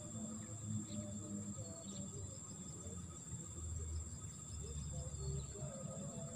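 Steady high-pitched insect chorus, like crickets, over a low rumble.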